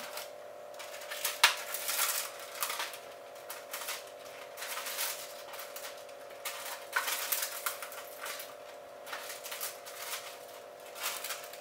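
Plastic punnet crinkling and clicking as blackberries are tipped out of it into a stainless steel saucepan of apple, in irregular small clicks and rustles, over a steady hum.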